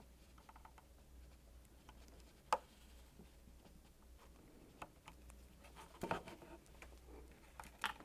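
Faint clicks and plastic handling as a small flat-blade screwdriver prises a wiring connector plug apart on a fridge freezer's door hinge cover. There is one sharper click about two and a half seconds in, and light fumbling near the end.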